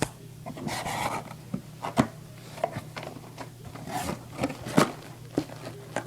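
Packaging being handled: irregular rustling of paper and cardboard with scattered clicks and knocks, a longer rustle about a second in.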